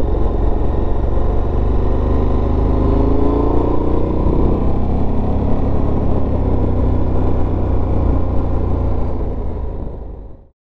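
KTM 1290 Super Adventure S V-twin motorcycle under way, with a steady low rumble; the engine note rises a few seconds in as it accelerates, and the sound fades out near the end.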